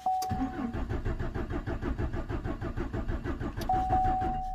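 Starter cranking the 2014 Chevrolet Silverado's 4.3 L V6 in an even, fast rhythm for about four seconds without it catching: a crank no-start, which the mechanic puts down to a failed low-pressure fuel pump giving no fuel pressure. A steady electronic tone sounds at the start and again near the end.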